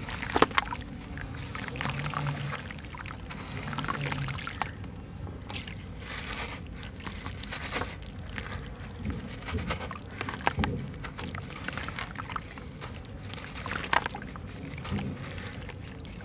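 Chunks of wet white sand-cement crumbled by hand over a tub of water: gritty crackling and crunching as the lumps break, with sand and crumbs pouring into the water and the water sloshing.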